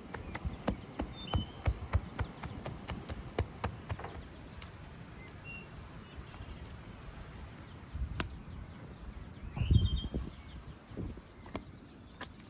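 Hands folding and pressing qutab dough around its filling: a run of small clicks and taps, then a couple of dull thumps later on. Faint bird chirps can be heard in the background.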